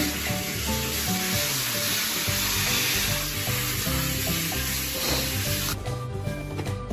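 Water spraying from a handheld shower head onto a dog's wet coat, a steady hiss that cuts off suddenly about six seconds in. Background music plays throughout.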